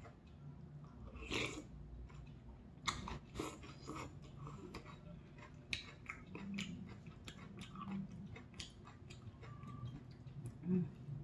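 Close-miked eating sounds: a person chewing and sipping soup broth from a spoon, with many short sharp clicks and a noisy sip about a second and a half in.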